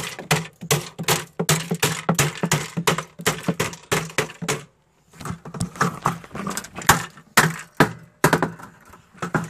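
A hammer striking the opened chassis, wiring and circuit boards of a television over and over, about three blows a second, with a low hum under the first half. The blows stop briefly about five seconds in, then come more spaced out.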